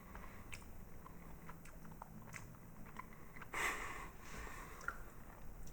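Faint chewing of a Haribo Milk Bear gummy, with small wet mouth clicks scattered through, and a short rush of breath-like noise about three and a half seconds in.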